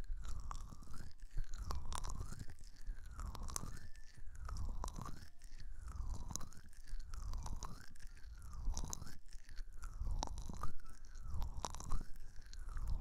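Hand sounds close up on an ASMR microphone: fingers rubbing with many small crackly clicks, and a swishing that rises and falls about once a second as the hand moves in and out.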